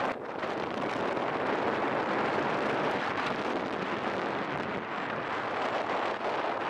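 Steady wind rush over the microphone of a camera on a moving motorcycle, with the motorcycle's engine running underneath at cruising speed.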